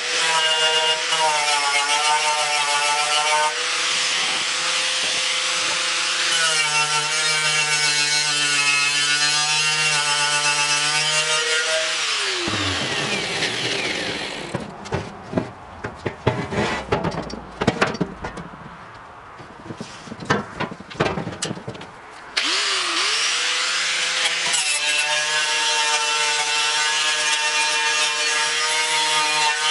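Angle grinder with a wire cup brush scouring paint and rust off the steel grille of a 1953 Ford F100 truck, prepping it for primer: a steady motor whine under a harsh scratching. Just under halfway through the grinder is switched off and winds down, and there is knocking and clatter as the grille is handled. About three-quarters through it spins back up and the brushing resumes.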